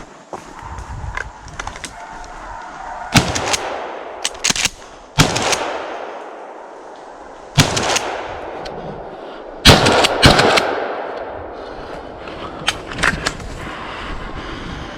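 A string of gunshots during a deer hunt: single shots and quick pairs spread over several seconds, the loudest cluster near the middle, each trailing off in echo.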